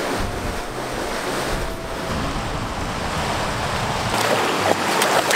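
Steady rushing water of a mountain stream and small waterfall. From about four seconds in, border collies wading through the shallows add light splashing.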